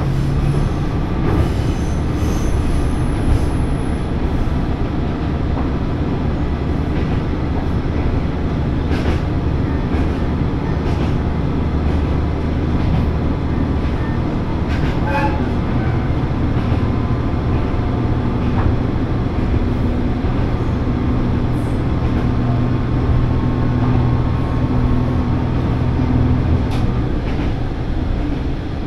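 Diesel railcar heard from inside while running along the line: a steady low engine hum and wheel rumble on the rails, with scattered short clicks. The engine hum grows stronger about halfway through.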